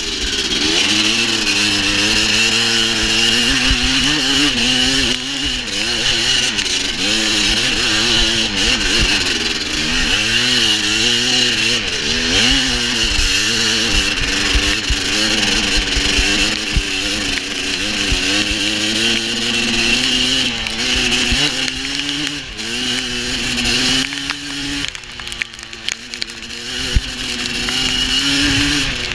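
Dirt bike engine running hard under the rider, its revs rising and falling with the throttle through the gears, easing off for a couple of seconds late on and then picking up again.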